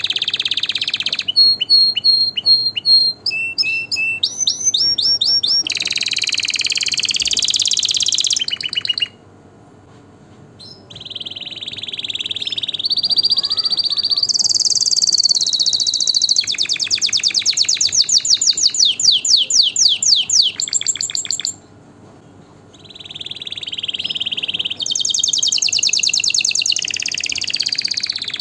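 Canary singing a long song of rapid trills and rolls of repeated high notes, with two short breaks, about nine and twenty-two seconds in.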